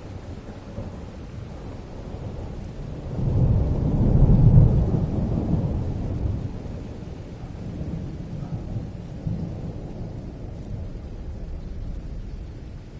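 Thunder rumbling, swelling about three seconds in and fading away over the next few seconds, over the steady noise of heavy rain.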